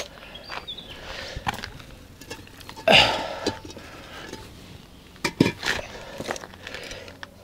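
Hollow concrete blocks being handled and set down on other blocks: scattered light knocks, a loud knock and scrape about three seconds in, and a pair of sharper knocks about two seconds later.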